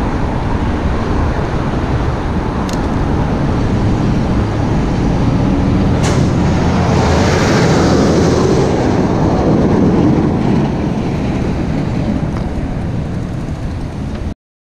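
Wind rushing over a moving bicycle's camera microphone, mixed with road traffic. The noise swells in the middle as a large truck drives close alongside, and the sound cuts off suddenly near the end.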